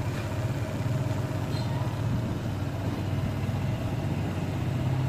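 Honda ADV 160 scooter's single-cylinder engine idling steadily, just after being started.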